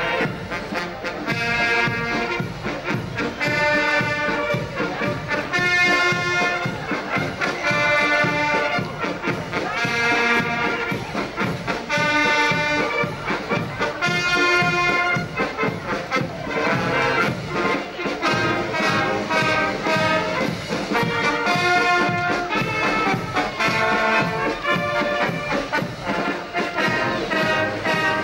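Brass band music: trumpets and trombones playing a tune in phrases of held notes over a steady beat.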